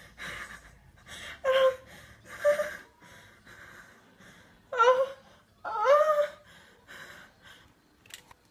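A frightened girl breathing hard and gasping, with four short high-pitched whimpers, the last one rising in pitch.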